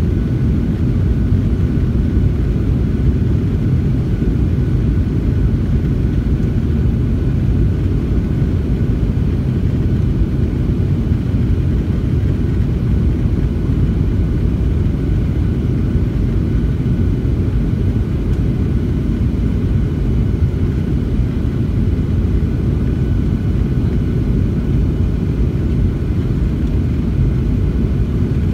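Jet airliner cabin noise heard from a window seat: the turbofan engines and rushing air make a steady low rumble, with a faint steady whine above it.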